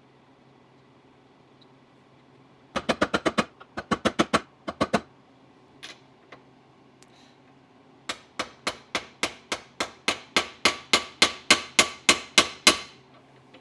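Ball-peen hammer striking steel: blows on a Triumph TR4 clutch release fork clamped in a bench vise, as its worn pins are replaced. A quick run of sharp taps comes about three seconds in and a few more follow shortly after. From about eight seconds a steady series of about four blows a second runs for nearly five seconds, growing louder.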